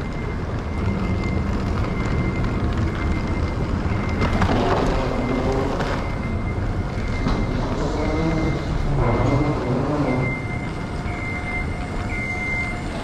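Steady hum and rumble of an airport's underground passageway, with a thin high whine throughout. Muffled, indistinct voices come and go between about four and ten seconds in.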